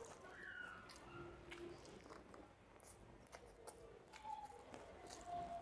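Faint eating sounds: fingers mixing curry-soaked rice on a stainless steel plate, with scattered sharp wet clicks and squishes.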